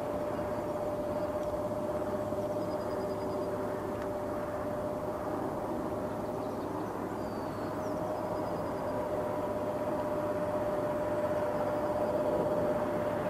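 Distant jet airliner engines: a steady hissing rumble with a held hum, growing slightly louder near the end.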